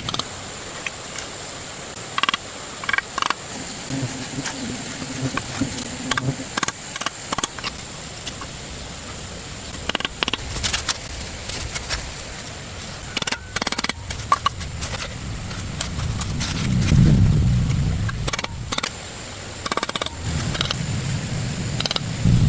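Scattered knocks and clicks of hands-on work over a faint steady hiss, with a louder low rumble swelling and fading about two-thirds of the way in.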